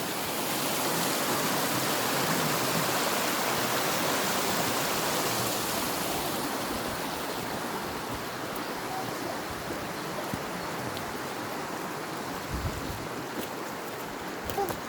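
River water rushing steadily where it quickens and drops down over rocks toward a waterfall. The noise is loudest in the first few seconds and eases a little toward the end.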